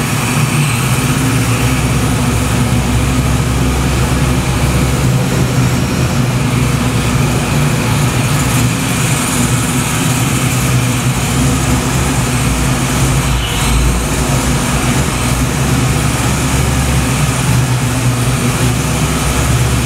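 Fox-body Ford Mustang's engine idling with a steady low note.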